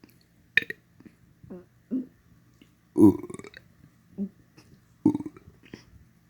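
A person burping on purpose: a string of short burps with pauses between them. The longest and loudest comes about three seconds in.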